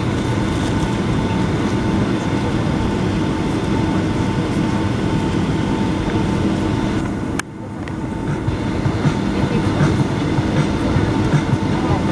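Cabin noise of a Boeing 757-200 taxiing: a steady rumble of the engines at idle and the wheels rolling over the taxiway, with a held hum and whine. About seven seconds in there is a sharp click, and the noise dips briefly before building back up.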